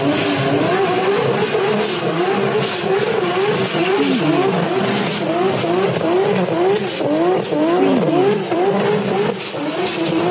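Several racing car engines accelerating hard together. Their pitches repeatedly climb and drop back at gear changes, overlapping in a continuous sawtooth of revs.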